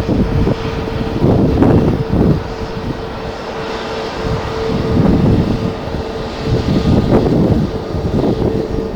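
Jet airliner engines running with one steady tone, under strong gusts of wind buffeting the microphone in irregular surges.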